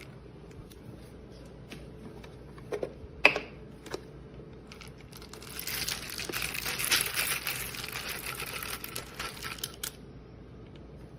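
A few plastic knocks as the grinder's hopper is handled, then whole coffee beans pouring out and rattling for about four seconds before stopping.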